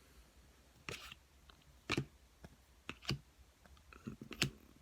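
Trading cards clicking as they are handled and flipped one by one: sharp separate clicks about once a second, two close together about three seconds in.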